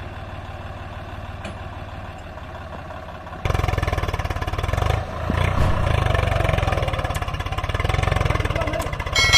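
Diesel tractor engines of a Mahindra Arjun 555 and a Swaraj 744 FE idling, then about three and a half seconds in suddenly much louder as they are revved to pull the mud-stuck Swaraj. A loud metallic clang with ringing comes right at the end.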